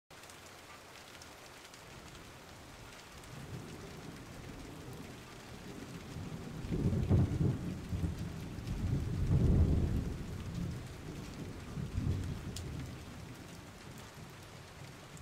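Thunderstorm ambience: steady rain with low rolling thunder that builds about halfway through, is loudest around two-thirds of the way in, then eases back to rain.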